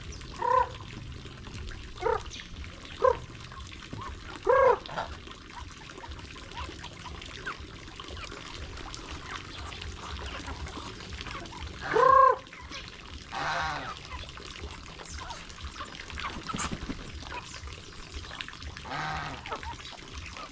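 White domestic ducks quacking in short single calls: several in the first five seconds, then the loudest about twelve seconds in. Shorter, rougher calls that may be from the chickens come in between.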